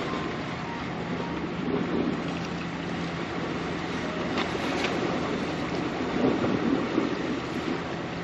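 Sea waves washing and wind buffeting the microphone, over a steady low hum, with a couple of faint clicks about halfway through.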